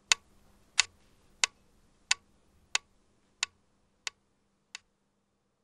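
Mechanical pendulum metronome ticking about one and a half times a second: eight sharp ticks that fade away, the last ones much quieter.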